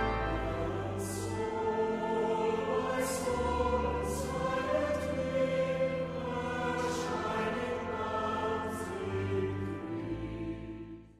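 Background choral music: a choir singing slow, sustained chords that fade out at the very end.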